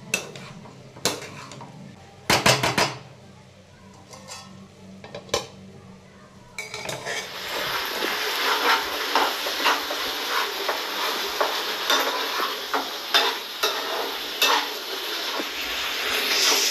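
A metal slotted spoon clinks against a nonstick wok a few times. Then, from about six and a half seconds in, sliced vegetables sizzle steadily in the hot pan as they are stirred, with frequent scrapes and taps of the spoon on the pan.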